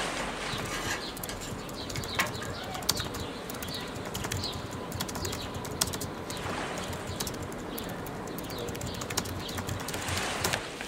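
Outdoor nature ambience: small birds chirping over a steady rushing noise, with scattered sharp clicks.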